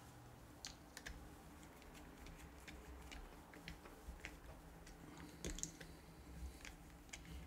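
Faint, irregular small clicks and light scrapes of a screwdriver working the terminal screws of a blue plastic 230 V hook-up plug, with a slightly louder cluster about five and a half seconds in.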